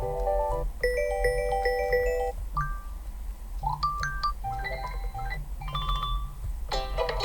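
A string of short Google Pixel 7 notification tones played one after another: about six brief chiming melodies, each lasting around a second, over a low steady hum.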